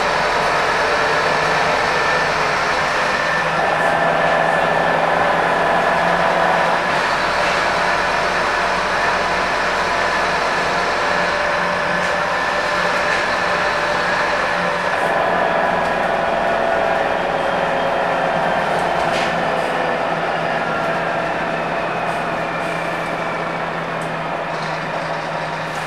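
Scania K230UB bus heard from inside the cabin while under way: the rear-mounted five-cylinder diesel and drivetrain running with a steady whine over rumble and body rattle. Near the end the whine drops slightly in pitch and the noise eases a little.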